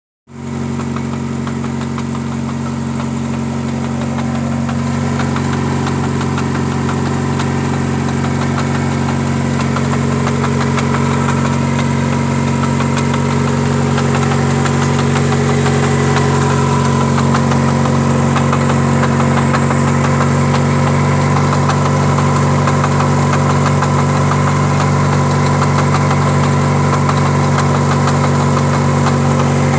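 Engine idling steadily, with a knock running through it: the knock is the noise being recorded, a sign of a fault in the engine.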